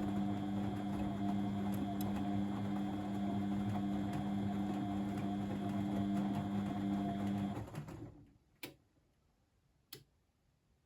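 Blomberg WAF 7442 SL washing machine running with a steady electric hum that stops about seven and a half seconds in, followed by two sharp clicks a little over a second apart.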